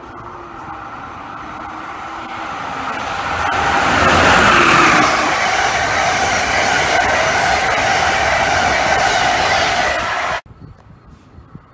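Amtrak passenger train of Amfleet coaches passing through the station: a rushing roar of wheels on rail and moving air that builds to its loudest about four seconds in, holds, then cuts off suddenly near the end.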